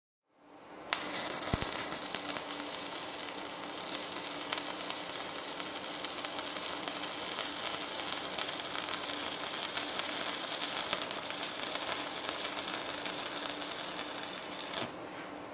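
Stick-welding arc from a Prime Weld TIG 225X running on DC, crackling and sizzling steadily as a bead is laid. The arc strikes about a second in and cuts off sharply near the end.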